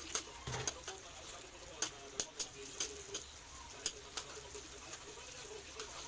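Metal spatula clinking and scraping against an aluminium wok in irregular taps as chopped onion is stirred and sautéed in butter and oil, over a faint steady sizzle. A dove coos softly in the background.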